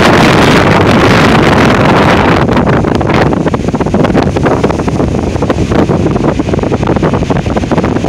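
Strong gusting wind of roughly 40 to 60 mph buffeting the microphone, a loud rushing roar through the trees. The gust is fullest in the first couple of seconds, then turns choppier, with rapid low flutter on the microphone.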